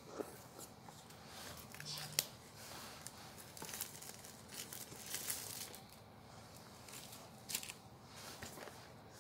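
Clear plastic wrap being picked at and peeled off a cardboard headphone box, crinkling and crackling in short, irregular bursts with sharp snaps, the loudest about two seconds in and again near the end.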